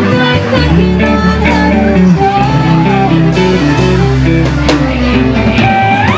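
A live rock band playing: electric guitar over bass and drums, with a voice singing a slow, held melody.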